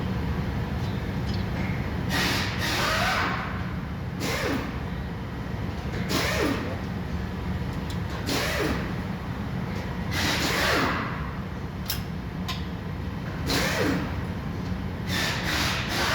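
Metal scraping and clanking of a new front strut being worked into the steering knuckle, in separate short bursts every two seconds or so, some with a brief falling squeal. A steady low hum runs underneath.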